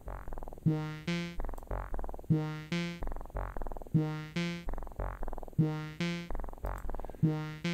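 Pure Data wavetable synth playing a looping sequence of pitched notes, about every 1.6 s, stepped by a plot sequencer. Each note starts sharply and fades away under a decay envelope whose length is set by the distance between plot points.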